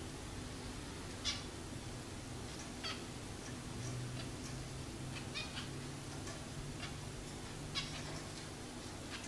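Pet finches giving a handful of short, high calls spaced a second or two apart, over a low steady hum.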